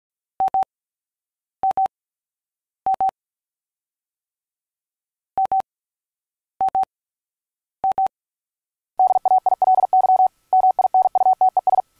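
A single steady beep tone sounded in short double pips, three pairs about a second apart, a pause, three more pairs, then keyed fast in uneven short and long beeps like Morse code for the last few seconds.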